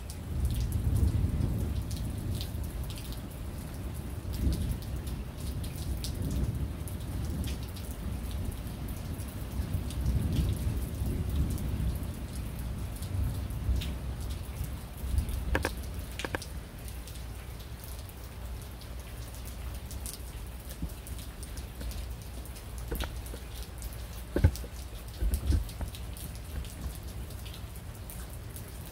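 Rain falling, with scattered drops tapping sharply on a surface, and low rolling thunder that swells about a second in and again around ten seconds in.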